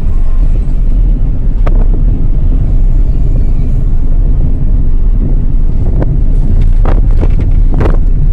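Loud, steady low rumble of a moving car heard from inside the cabin: road and engine noise, with wind buffeting the phone's microphone. A few sharp clicks stand out near the start and in the last few seconds.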